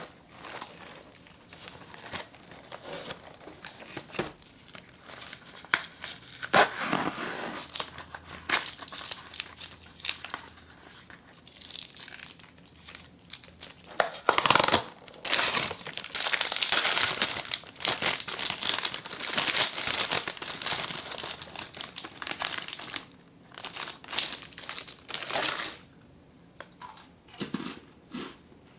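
Hands tearing open a cardboard biscuit box and crinkling a foil wrapper: sharp rips and paper-card handling clicks, with a dense stretch of crinkling in the second half.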